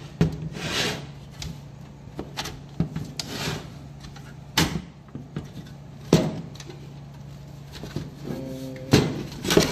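Side panel of a mini-ITX PC case being handled, worked loose and slid open. There are scraping and rubbing sounds and several sharp knocks spread through.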